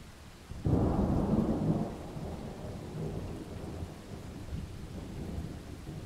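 Thunder during steady rain: a sudden clap under a second in stays loud for about a second, then rolls on as a lower rumble that slowly fades.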